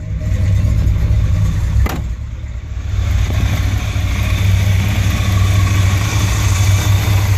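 1969 Chevrolet Impala's 396 big-block V8 idling steadily, running smoothly, with a single sharp knock about two seconds in. The idle gets louder from about three seconds in.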